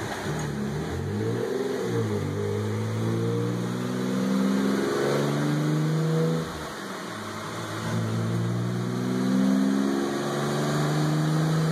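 Twin-turbocharged Nissan 350Z's 3.5-litre V6 accelerating hard, its pitch climbing steadily, dropping at a gear change about six and a half seconds in, then climbing again.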